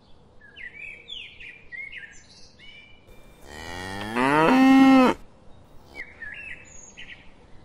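A cow mooing once, a long call that rises in pitch and then holds steady before stopping abruptly. Birds chirp before and after it.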